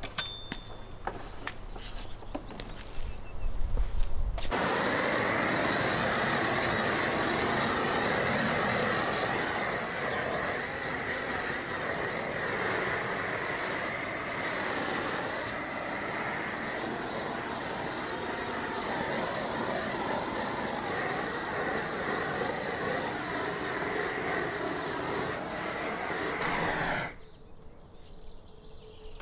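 Gas torch fed from a propane cylinder burning with a steady hiss, singeing a plucked goose. It comes on suddenly about four seconds in and cuts off suddenly shortly before the end.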